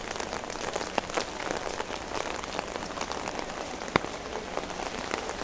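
Heavy rain pattering steadily on an umbrella overhead, with a few sharper drop hits; the loudest comes about four seconds in.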